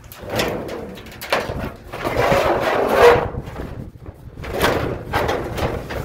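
Sheet-metal dryer drum being handled and set back into the dryer cabinet: several bouts of scraping and rubbing with a few knocks, loudest about three seconds in.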